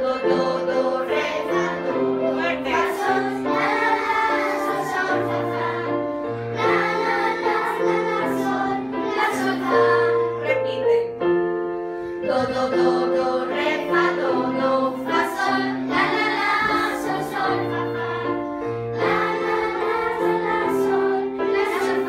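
A group of children playing electronic keyboards together: held chords over a slow-moving bass line, with children's voices singing along.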